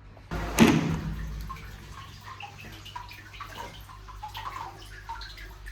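Liquid splashing briefly about half a second in, then dripping, with many short scattered drips.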